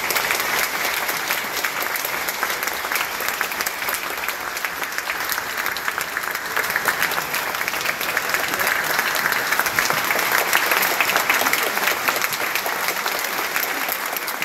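Audience applauding: dense, steady clapping, growing a little louder about halfway through.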